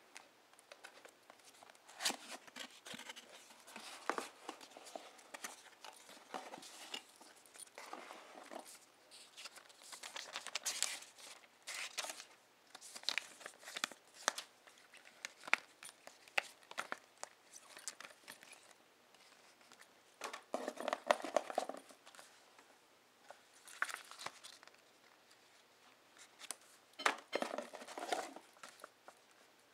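Cardboard packaging and paper leaflets handled by hand: irregular rustling, crinkling and light tapping of paper and card, with longer bursts of rustling about two-thirds in and again near the end.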